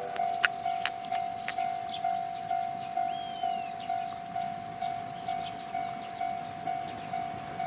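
Level-crossing warning bell ringing in a steady, even ding-ding rhythm of about two strikes a second, signalling that a train is approaching. A few sharp clicks sound in the first second and a half.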